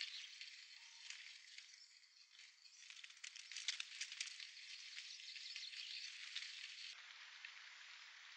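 European greenfinch nestlings begging at the nest: a faint, high, rapid raspy chatter. It is loudest and busiest about three to four seconds in, while the chicks flap their wings at the adult.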